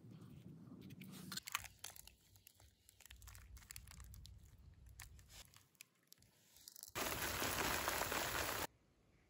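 Small crunches and crackles of fingers pressing peanut seeds into coir potting mix in plastic seedling trays. About seven seconds in, water sprays onto the trays with an even hiss for under two seconds, then cuts off suddenly.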